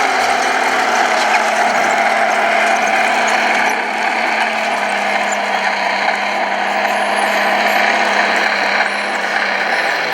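Electric drive motors and gearboxes of radio-controlled scale construction machines running steadily, with a gear whine and rattle.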